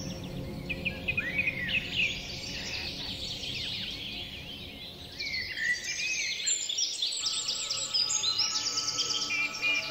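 Many small birds chirping and trilling, with a quick run of repeated notes in the last few seconds, over soft meditation music of steady held tones.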